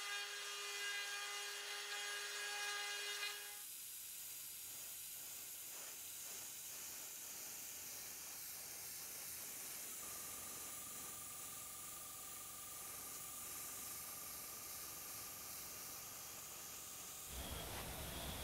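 A power drill with a small bit whines steadily while drilling holes through a clear plastic stencil, stopping about three seconds in. Then paint is sprayed through the stencil onto a metal spoon lure: a steady hiss, with a faint steady tone joining it partway through, that stops near the end.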